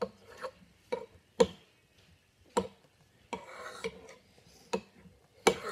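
Metal utensil stirring a thick slime mixture of glue and shaving foam in a ceramic bowl, knocking against the bowl in about seven sharp clicks, with softer stirring noise between them.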